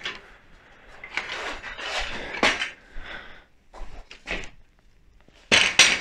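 A stepladder being handled and set up, clattering and knocking irregularly, with the loudest clatter near the end.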